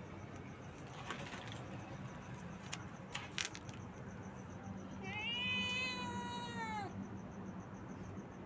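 A domestic cat gives one long, drawn-out meow about five seconds in, lasting about two seconds, its pitch rising at the start and dropping away at the end. A few faint clicks come before it.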